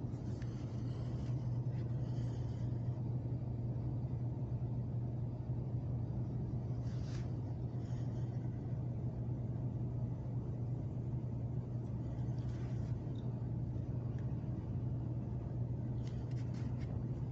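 A steady low rumble, with a few faint clicks here and there.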